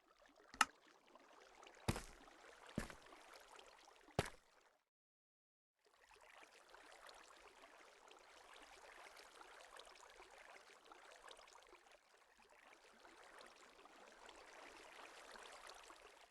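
Faint, steady ambient hiss, with four sharp clicks in the first four seconds. The sound cuts out to dead silence for about a second, then the hiss resumes.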